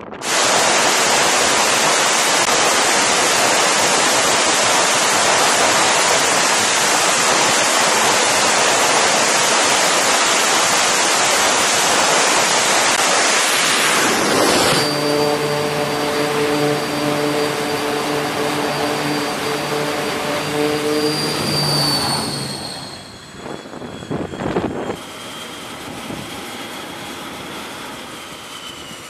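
Carrier jet aircraft engines on a flight deck. A jet at full power comes in suddenly as a loud, steady rush of noise for about fourteen seconds. It then gives way to a jet engine with a steady hum and a high whine that fades. Near the end, a quieter jet engine idles with a high whine that slowly falls in pitch.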